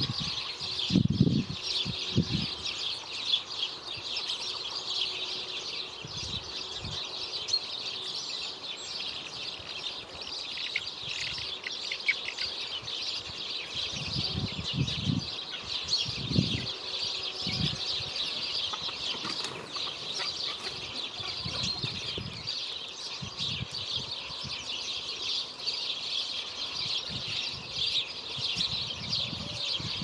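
Small garden birds chirping and twittering continuously, a dense chorus of short high calls. A few low fluttering thumps of wings come near the start and again around the middle, as birds land and take off at the feeder.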